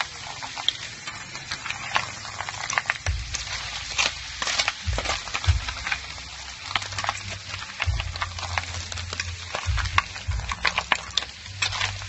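Snails in their shells frying in a pan, sizzling and crackling, with many sharp clicks and cracks throughout; a low hum comes and goes in the background.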